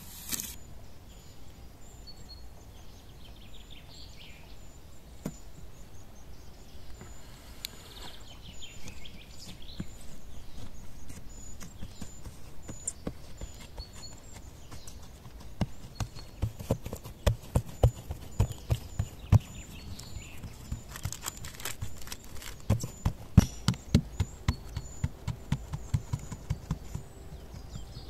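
Hands pressing and patting pizza dough out across a parchment-lined metal baking pan: runs of soft thumps, several a second, starting about halfway through and again a little later.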